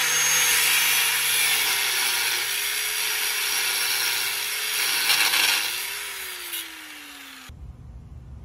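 Corded angle grinder cutting through a seized steel bolt, its motor pitch wavering under load. About five and a half seconds in the cutting stops and the grinder winds down with a falling whine.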